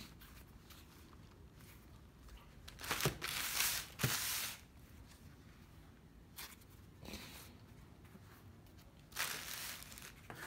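Clear plastic packaging bag crinkling faintly in a few short bursts as it is handled, the last one near the end as a slide is pushed into it. Light knocks come with the first two bursts.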